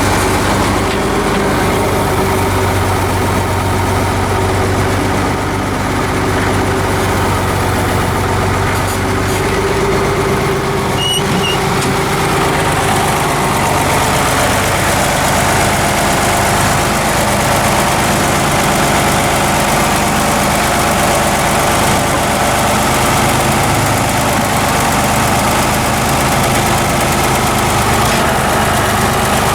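Vehicle engine running steadily; its note shifts about ten seconds in.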